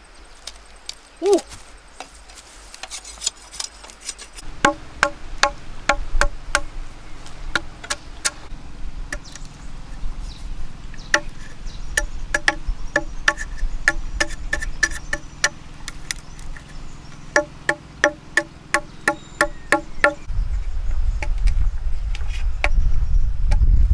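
Heavy knife chopping into a hollow green bamboo tube: sharp knocks, each with a short hollow ring, in runs of two or three a second. Near the end a louder low rumbling noise takes over.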